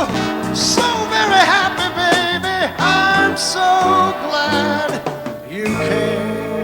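Brass-rock band music: a male voice singing in sliding phrases over horns and a rhythm section, settling near the end into a steady held chord.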